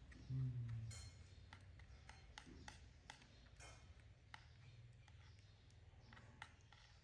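Soft, scattered clicks and taps of a metal spoon against a small plastic bowl as food is stirred, with a brief low murmur about half a second in.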